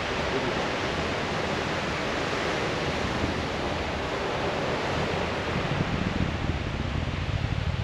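Falcon 9 rocket in flight, heard from far off as a steady rushing roar, with a low crackling rumble growing stronger over the last couple of seconds.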